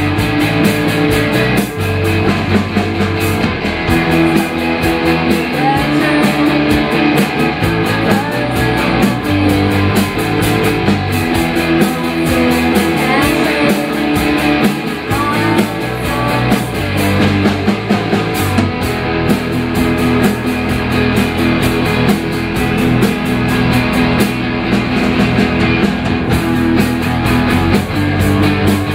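A live rock band playing a song on electric guitars and a drum kit.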